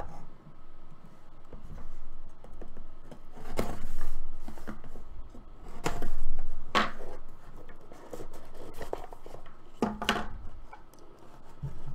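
A small cardboard trading-card box being cut and worked open by hand: several short scraping and tearing sounds as the seal is slit, then the lid pulled off about ten seconds in.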